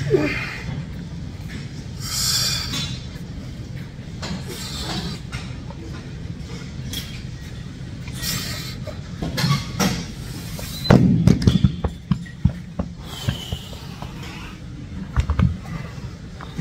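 Forceful breaths of a lifter straining through reps of a heavy seated dumbbell shoulder press, over a steady low gym hum. About eleven seconds in comes a cluster of loud clunks, the hexagonal dumbbells being set down, with a few more low thumps near the end.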